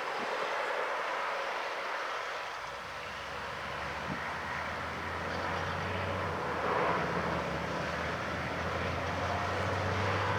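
John Deere S680 combine harvesting corn, a steady mechanical din. A low, steady engine hum joins in about two seconds in.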